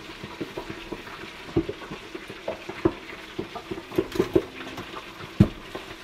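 Pork chunks (griot) frying in a lidded electric deep fryer: the oil sizzles steadily, with irregular sharp pops and crackles as the meat spatters in the hot oil.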